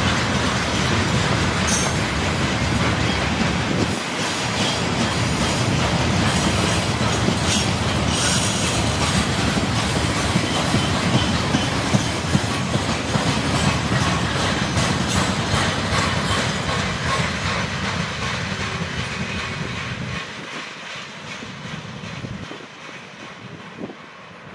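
Freight train's tank cars and gondola wagons rolling past, with wheels clattering over the rail joints. The rolling noise fades over the last few seconds as the tail of the train moves away.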